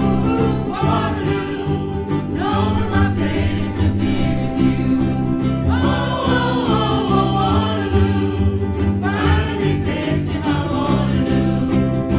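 A ukulele group playing and singing together through a PA: massed voices over a steady strummed beat and held chords.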